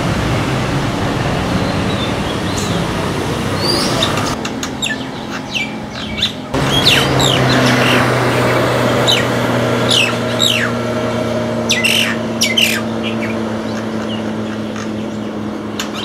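Bird calls over road noise. First come a few whistled notes from an Oriental magpie-robin. About six and a half seconds in, after a cut, a common myna gives a run of sharp, falling calls over a steady vehicle engine hum.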